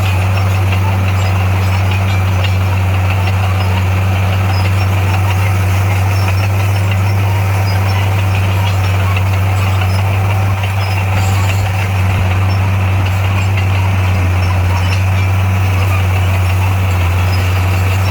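Large diesel engine of heavy construction equipment running steadily with a deep, even hum.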